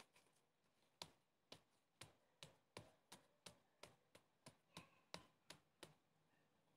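Gloved fingertips pressing a ball of bread dough flat on a work surface, a quick run of faint taps about three a second that stops about a second before the end.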